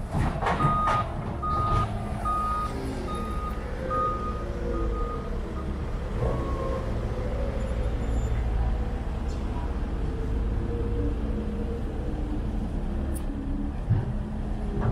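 Reversing alarm on a construction vehicle beeping about six times at an even pace, then stopping about five seconds in, over the steady low running of diesel construction machinery.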